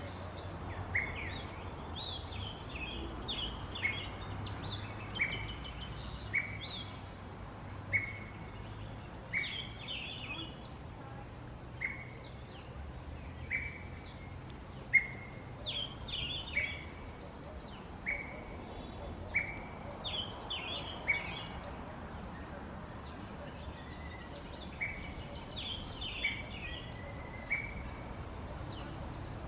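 Small songbirds chirping: a short falling chirp repeated about once a second, with quicker twittering calls above it and a steady thin high tone underneath.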